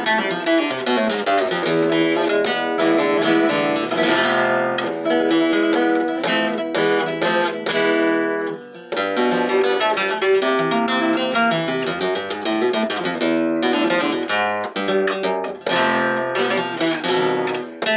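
Graciliano Pérez cypress flamenco guitar with newly fitted D'Addario EJ45 nylon strings, played in strummed and plucked passages with a brief pause about eight and a half seconds in. The new strings leave it a little out of tune.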